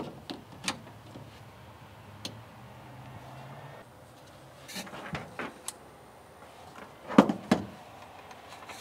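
Scattered light clicks and knocks of hands handling the newly wired power outlet and switch, with two louder knocks about seven seconds in, over a faint steady hum that stops about four seconds in.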